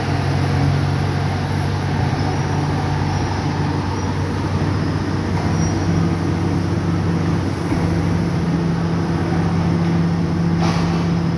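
Heavy diesel engine running steadily with a deep hum, its pitch stepping up slightly about halfway through as the revs rise. A short sharp clank near the end.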